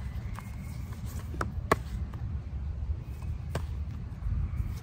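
Tarot cards being handled and moved through a deck held in the hands, with a few sharp card snaps, the loudest nearly two seconds in, over a steady low rumble.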